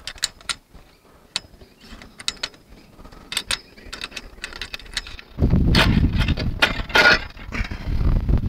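Sharp metal clicks and clinks as the thin metal elements and tiny screws of a discone antenna are fitted by hand to its hub. About five seconds in, a loud low rumble on the microphone starts and stays over the clicks.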